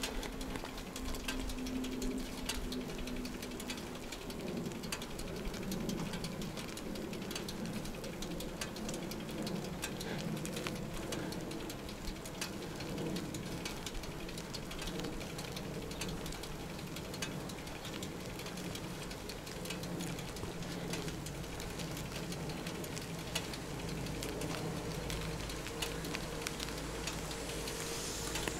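Bicycle in motion: steady tyre and road noise with dense rattling, ticking clicks throughout and a faint low hum under it.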